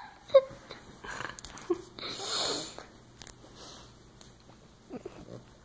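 A flat-faced puppy making a few short vocal noises and a long, noisy breath about two seconds in, as if answering the person talking to it.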